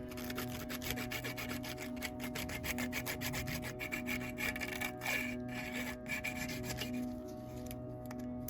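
Rapid back-and-forth rubbing strokes of hand work on a small part of a vintage lighter, like filing or sanding, thinning out near the end.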